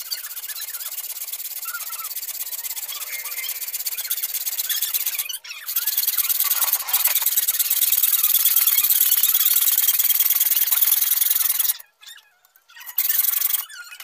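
Hacksaw cutting through a metal tube in steady back-and-forth strokes, a rasping, squealing scrape. It pauses briefly about five seconds in, grows louder about a second later, stops near the end, and is followed by one short burst of strokes.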